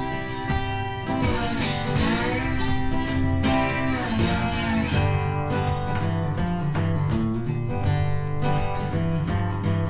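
Background music led by acoustic guitar, with notes that slide in pitch every couple of seconds.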